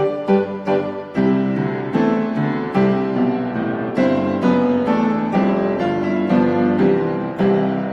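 Slow piano music: quick single notes at first, then sustained chords struck about once a second from about a second in.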